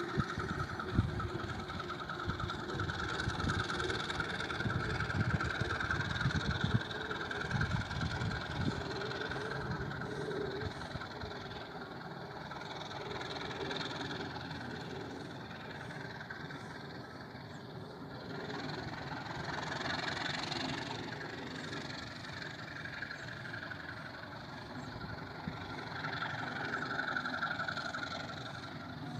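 Passenger train pulling away around a curve: a low rumble of wheels on rail and the distant diesel locomotive. It is loudest over the first several seconds, then fades to a fainter steady drone as the train recedes.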